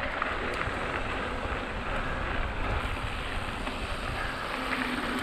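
Mountain bike tyres rolling fast over a gravel trail, with steady wind noise buffeting the action-camera microphone.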